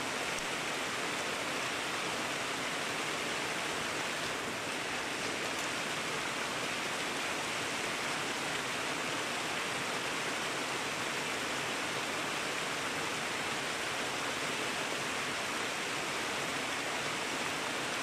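A small mountain creek splashing steadily down a short rocky cascade.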